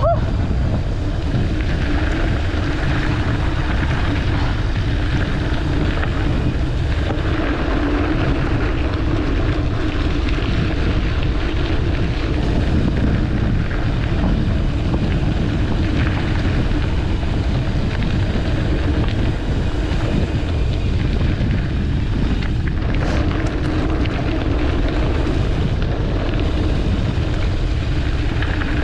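Wind rushing over the camera microphone of a mountain bike going fast downhill on a dirt forest road, over a steady low rumble of the tyres on the dirt.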